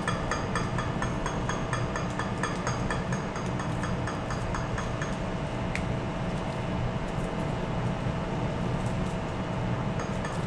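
Steady ship's machinery rumble and hum with a fast, regular ticking, about four ticks a second, that fades out midway and comes back near the end, plus one sharp click about six seconds in.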